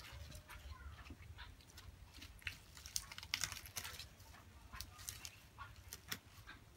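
Close-up eating sounds: a person chewing, with many short wet clicks and smacks that are densest in the middle, and fresh leaves rustling as they are picked from a plate.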